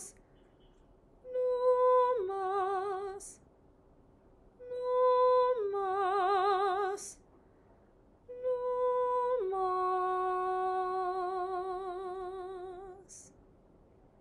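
A woman's voice humming a slow, wordless melody in three phrases, each a held note that drops to a lower one and wavers with vibrato, the last phrase the longest. Each phrase ends in a short hiss.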